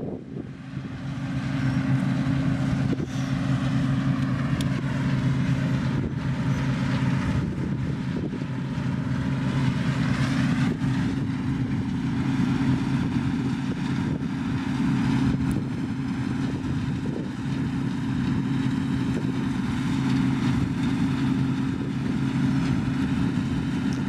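New Holland TX32 combine harvester running steadily while harvesting, its engine note even and continuous.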